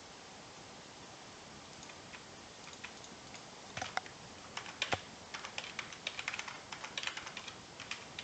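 Computer keyboard typing: a quick, uneven run of keystroke clicks that starts about two seconds in and gets busier toward the end, over a faint steady hiss.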